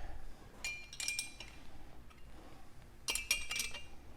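Metal tool clinking and clicking against the steel bolts of a gas regulator's spring tower as they are tightened down, in two short bursts of sharp ringing clicks.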